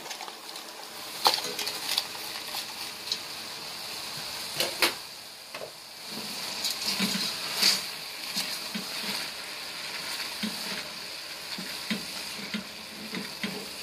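Chicken and chopped vegetables sizzling in a stainless steel pot, with a plastic bag crinkling as chopped green onions are tipped in. From about halfway, a silicone spatula stirs and scrapes the mixture against the pot in irregular strokes.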